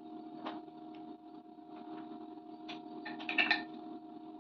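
Wooden Montessori sound cylinders being shaken and set down in their box: a few light knocks and rattles, busiest about three seconds in.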